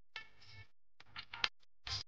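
Faint clicks and taps of a spatula on a nonstick pan holding dry semolina, with a short louder scrape near the end as the spatula starts to stir.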